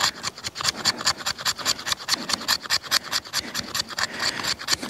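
The 90-degree spine of a bushcraft knife scraping a stick of fatwood in quick, even strokes, about six or seven a second, raising fine resinous fuzz for tinder.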